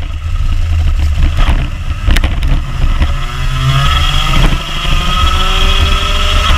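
Rotax Junior Max 125cc two-stroke kart engine heard onboard, off the throttle with the revs low through a corner, then revving up steadily as the kart accelerates out from about three seconds in. A few sharp knocks come around two seconds in.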